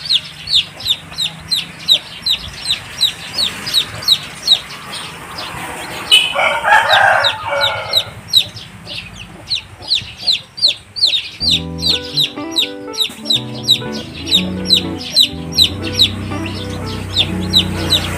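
Newly hatched upgraded native chicken chicks peeping: a steady run of short, falling peeps, about three a second. About six seconds in there is a longer, lower call lasting about two seconds.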